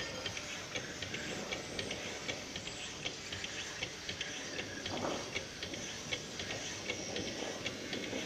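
HERO power hacksaw sawing through a thick steel round bar, its motor- and crank-driven blade frame stroking back and forth. It gives a steady run of light, regular ticks over a faint hiss.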